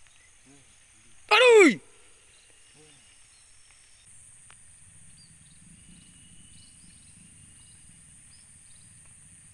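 A man's loud exclamation, 'aduh', a single cry falling sharply in pitch about a second and a half in. Otherwise quiet open-field background: a steady high hiss, a few faint short chirps and a soft low rustle.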